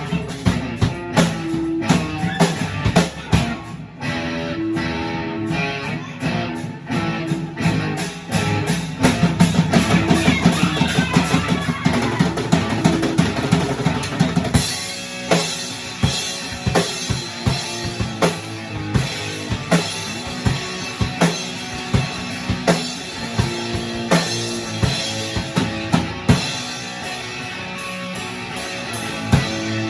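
Drum kit and guitar jamming on a repeated three-chord progression, with steady kick and snare hits. About halfway through, the deep bass falls away and cymbals come up brighter.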